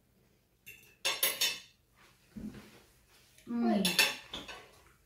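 Metal knife and fork scraping and clinking on a ceramic plate as a fish cake is cut, loudest about a second in. A short voiced sound is heard about two thirds of the way through.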